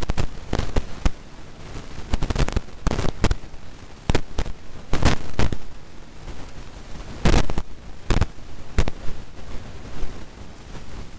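A series of irregular sharp bangs and cracks, some coming in quick clusters, with the loudest about five and seven seconds in.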